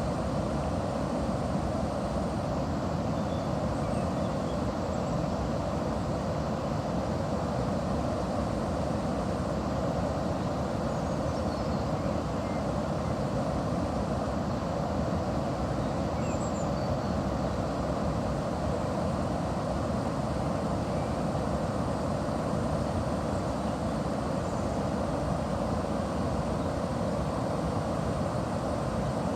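Steady rush of river water at a watermill, an even noise at a constant level, with a few faint high chirps here and there.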